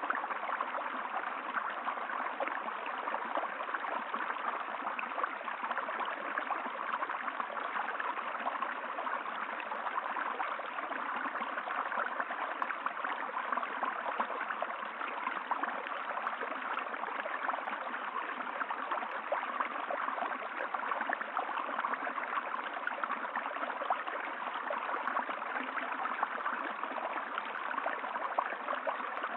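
Running water flowing steadily and without a break, an even rush with no changes.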